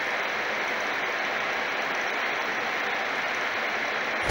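Steady rushing air noise from a rotary subwoofer's spinning fan, with no bass being played yet.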